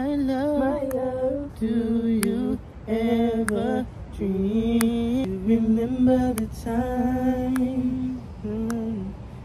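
A single voice humming a slow melody with no accompaniment, in long held, slightly wavering notes with short breaks between phrases. A few sharp clicks are heard along with it.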